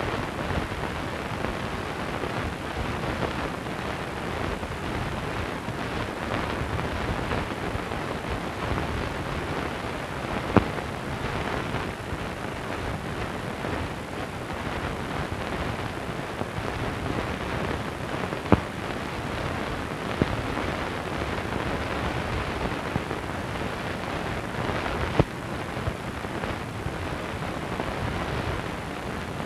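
Steady hiss and crackle from a worn old film soundtrack with no dialogue or music, broken by a handful of sharp pops.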